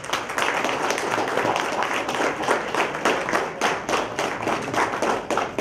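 Audience applauding: many hands clapping steadily, with one nearby pair of hands standing out.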